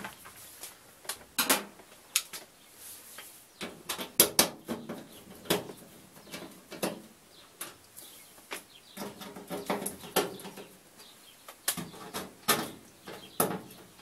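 Irregular handling noise at the sheet-metal back of a washing machine: scattered clicks and knocks, with a few short squeaky sounds in between.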